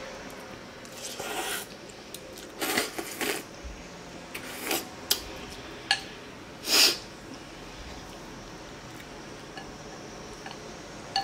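Eating pho: about five short slurps of rice noodles and broth, the loudest near the end, with a couple of light clicks of a plastic spoon and chopsticks against a glass bowl in between.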